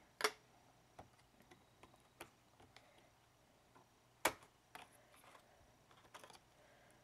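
Scattered light clicks and taps of computer hardware being handled while RAM is swapped, with two louder clicks, one just after the start and one about four seconds in.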